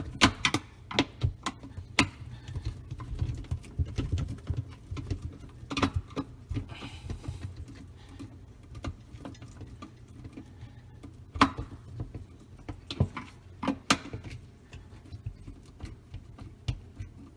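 Screws being driven into a dishwasher's plastic assembly: irregular light clicks and taps of the screwdriver and parts, with a few sharper knocks.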